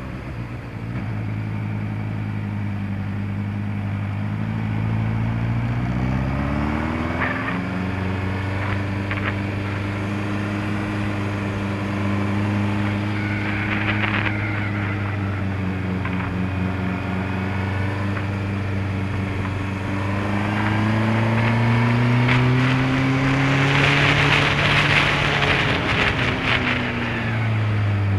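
Honda CBF600S inline-four motorcycle engine running while riding, its pitch climbing as it accelerates about six seconds in and again over a few seconds past the twenty-second mark, then dropping near the end as it slows. Wind rush grows loudest during the faster stretch.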